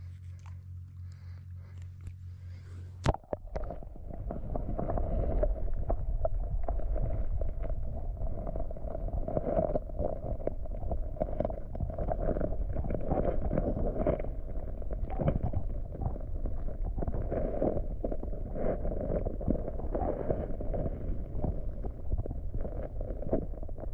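Camera microphone going under river water: a sharp knock about three seconds in as it goes under, then a steady, muffled underwater rumble and gurgle with many small irregular knocks.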